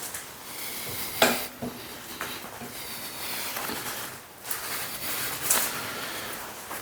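Metal clanks, knocks and scraping from a heavy switchable steel lifting magnet being worked against the underside of a steel welding table. The loudest knock comes about a second in, with smaller knocks after it.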